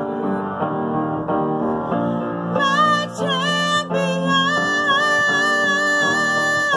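A woman singing over repeated keyboard chords; her voice comes in about two and a half seconds in and holds a long note with vibrato.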